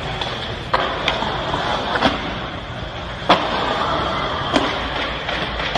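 Skateboard wheels rolling on a concrete bowl, a steady rumble, broken by five sharp knocks of the board on the concrete, the loudest a little past halfway.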